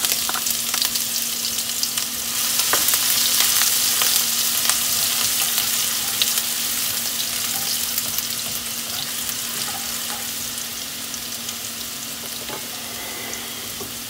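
Chopped onion sizzling in hot oil with mustard seeds in a nonstick wok, stirred with a wooden spatula, with a few small pops through the hiss. The sizzle is loudest in the first few seconds after the onion goes in and slowly dies down, over a steady low hum.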